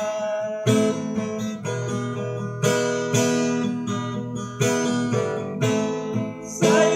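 Acoustic guitar strumming a slow chord progression, a new chord struck about once a second, with no voice over it.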